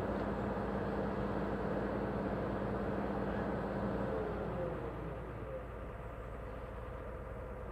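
Engine of heavy construction machinery running steadily off to one side, a low hum with a whine on top. About five seconds in, the pitch slides down and it gets a little quieter, as the machine throttles back.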